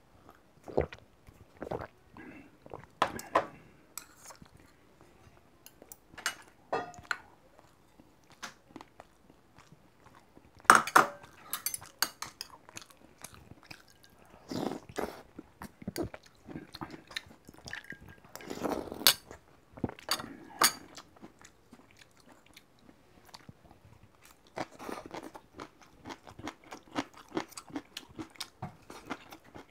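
Close-miked eating sounds: swallows of water, soup slurped from the bowl, chewing with crunchy bites, and sharp clicks of metal chopsticks against steel and ceramic bowls, coming in irregular bursts.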